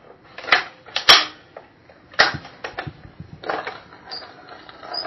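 A run of about a dozen short, sharp knocks or claps at uneven spacing, the loudest about a second in: a sound effect in a recorded audio play.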